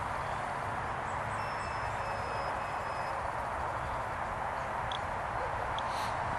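Tinyhawk 2 tiny-whoop drone flying overhead: a faint, thin, high whine from its small motors and propellers, over a steady outdoor hiss.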